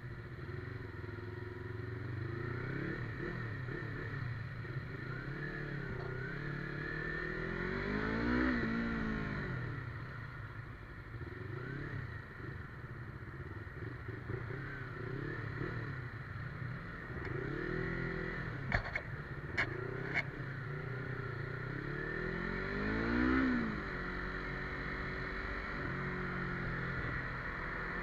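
Yamaha MT-25's parallel-twin engine pulling through the gears, its pitch rising and falling, with two strong revs about a third of the way in and again near the end. A few sharp clicks come close together around the middle.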